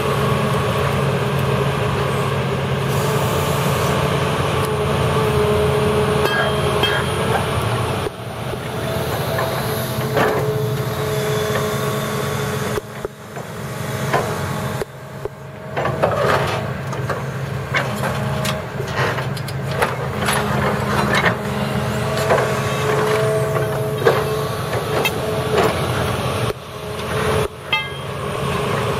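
Hydraulic excavator engine running steadily, with a whine that rises and falls as its clamp attachment grabs, lifts and sets packs of concrete dike blocks. Several sharp knocks of concrete against concrete or steel are heard along the way.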